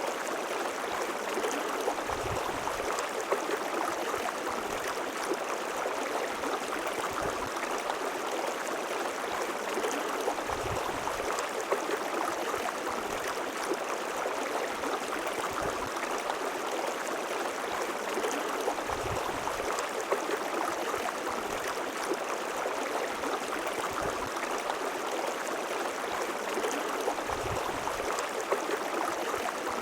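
River water flowing steadily over rocks, a continuous rushing and babbling, with now and then a brief low burble.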